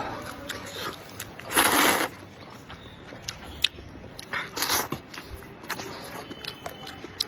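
Close-miked eating of spicy noodles: small chewing and mouth clicks throughout, with two louder noisy bursts of eating, the loudest about one and a half seconds in and another near five seconds.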